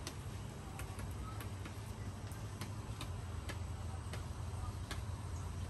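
Light, irregular clicks, roughly two a second, over a low steady hum: hands pressing a cluster of imbricata succulent rosettes and loose soil into a ceramic pot.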